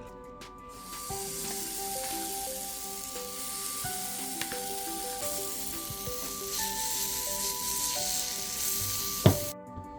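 Plantain waffle batter sizzling in a hot waffle iron, a steady hiss that cuts off near the end, just after a single sharp knock.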